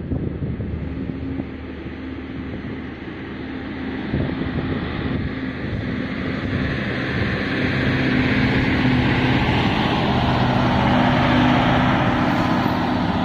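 Low, steady engine hum of a large bulk carrier passing close by under way, beneath a rushing noise that grows louder from about halfway through.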